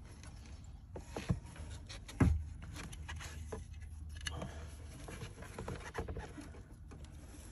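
Hands rummaging at speaker wiring inside a car's rear side trim panel: rustling, scraping and small clicks of wire and plastic, with one louder knock about two seconds in.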